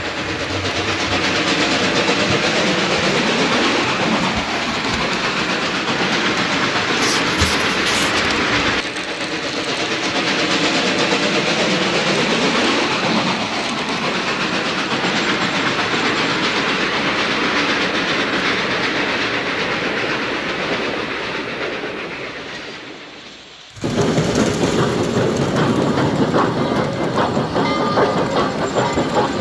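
Model train, a NYC Hudson steam locomotive model pulling passenger cars, rolling along the layout's track with a steady rumble and the clickety-clack of its wheels on the rails. The sound changes suddenly about 9 s in, fades away after about 21 s, and starts up again abruptly near the end.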